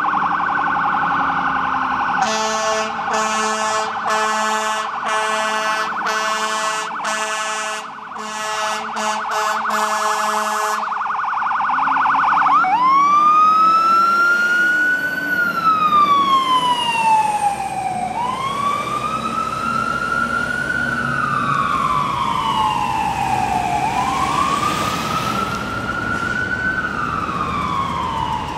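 Fire engine responding with its warning devices: after a brief siren tone, a long run of short air-horn blasts sounds for about eight seconds, then the siren wails, rising and falling slowly over several cycles.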